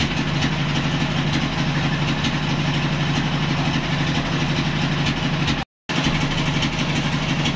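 Band sawmill's engine idling steadily with an even low hum while the blade stands still. The sound cuts out for a split second near the end.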